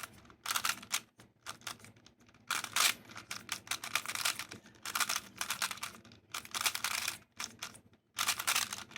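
GAN 356i smart Rubik's-type speed cube being turned fast by hand: rapid plastic clicking and clacking in quick runs of turns, broken by short pauses.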